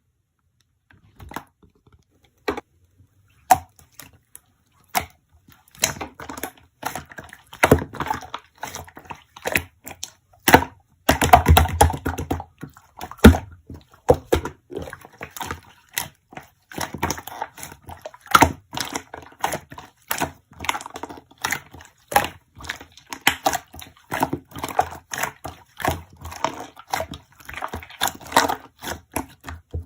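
Slime being squished and poked by hand, making sticky clicks and small pops. There are a few single clicks at first, then about six seconds in they become nearly continuous, with a denser squelching stretch around eleven seconds in.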